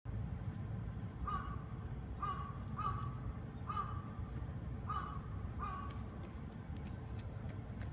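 A crow cawing six times in short calls spread over a few seconds, against a steady low rumble.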